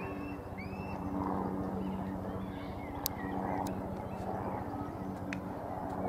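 Outdoor background by the water: a steady low hum and rumble, with a few short high falling bird peeps and several sharp clicks.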